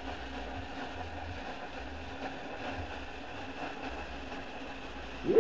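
Cut 40 plasma cutter cutting sheet steel, a steady hiss with a faint hum, running on low air pressure of about 25 to 30 psi. Near the end a much louder sound starts, with a tone rising sharply in pitch.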